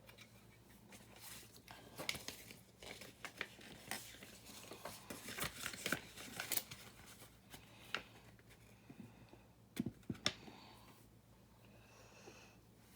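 Small plastic building bricks and plates being handled and pressed together: scattered light clicks and rustling.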